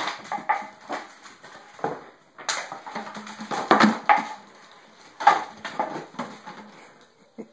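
Small dog playing with a toy on a hardwood floor: irregular clatters and knocks as the toy and its claws hit the wood, loudest about two and a half, four and five seconds in.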